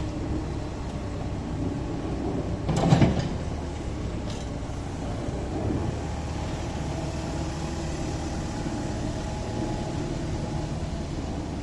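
Diesel engine of a Caterpillar 306 mini excavator running steadily, with a brief louder noise about three seconds in.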